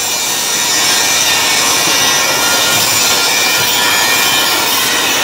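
Small single-phase electric wire-rope hoist (mini monkey hoist) running under its pendant switch, its motor and gearbox giving a steady, even whir.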